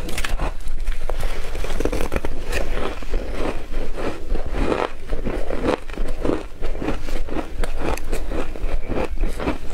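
Close-miked crunching of shaved ice being bitten off a spoonful and chewed, a dense run of rapid crackles.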